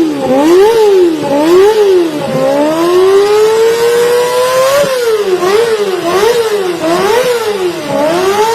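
Motorbike engine revved through a LeoVince GP Corsa Evo Long aftermarket exhaust, loud. It runs in a string of quick throttle blips, with one longer rev held and climbing in the middle.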